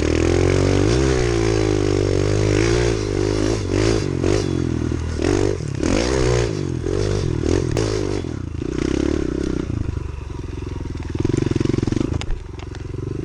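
Kawasaki KLX110 pit bike's small four-stroke single-cylinder engine being ridden, revving up and down repeatedly, then running more steadily at lower revs in the second half.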